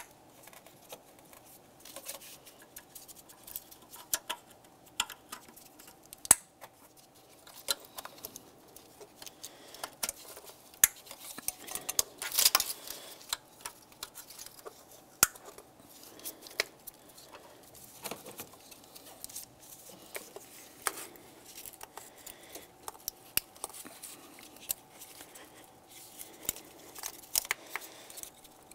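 Irregular light clicks and rattles of plastic electrical connectors and wiring-harness clips being handled and snapped into place in an engine bay, busiest about halfway through, over a faint steady hum.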